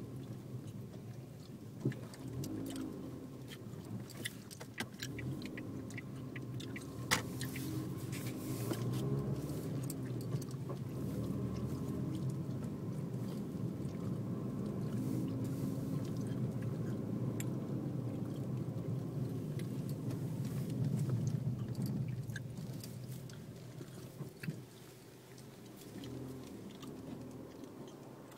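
Car driving, with engine and road noise heard from inside the cabin; the engine note rises and falls, grows louder for a stretch in the middle, then eases off near the end. A few sharp clicks, the loudest about seven seconds in.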